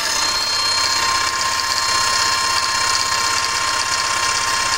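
Makita HM002G 80V brushless SDS-max demolition hammer's motor running steadily with a whine, without hammering: with no bit pressed against brick or concrete, the hammer mechanism does not strike.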